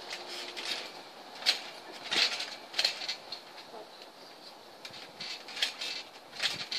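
Garden trampoline springs squeaking in short, irregular bursts as the girls bounce on the mat.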